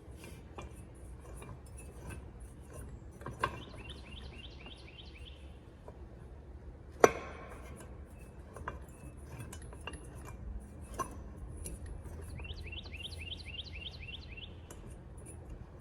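Metal parts of a 212cc small engine being handled during teardown: light clinks and clicks, with one sharp metallic clank about seven seconds in and two runs of quick repeated ticks.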